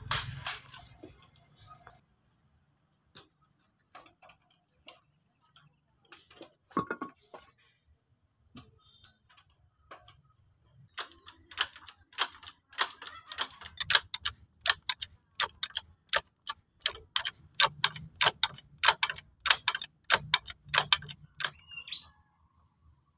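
A hand tool scraping and digging at gravelly dirt: a fast run of sharp scratching clicks, about three to four strokes a second, starting about a third of the way in and stopping shortly before the end. Earlier there are only scattered clicks and one knock.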